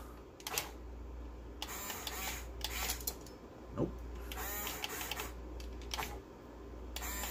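Electric gear motors of a Huina 1/14-scale RC excavator whirring in short runs, starting and stopping as the arm and grabber are worked to pick something up.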